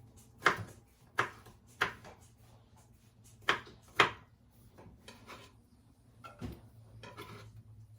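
A few sharp knocks from kitchen work on a wooden surface, irregularly spaced: five loud ones in the first half, then fainter clatter.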